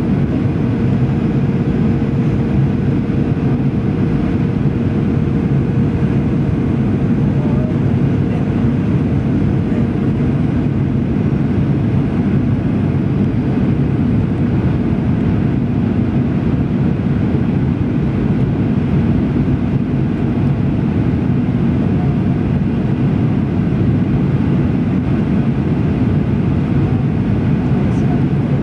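Steady in-cabin noise of a jet airliner on final approach: engine and airflow noise, deep and even, with a faint steady hum that fades out about ten seconds in.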